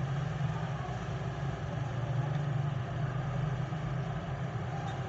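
A steady low mechanical hum, like a motor or engine running at idle.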